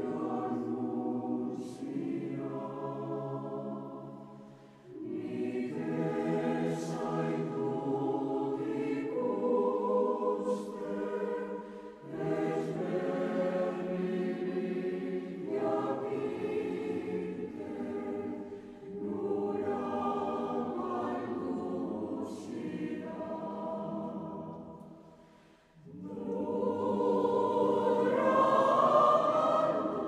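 Choral music: a choir singing slow, sustained chords in long phrases, with a brief break about every seven seconds.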